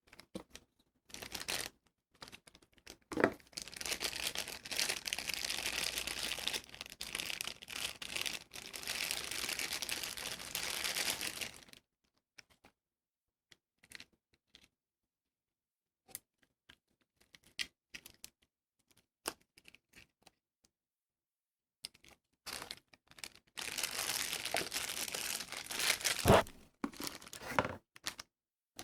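Plastic and paper packaging being crinkled and torn open during an unboxing, in two long crackling stretches. Between them are scattered light taps and clicks as the items are handled, and a sharp click sounds near the start and another near the end.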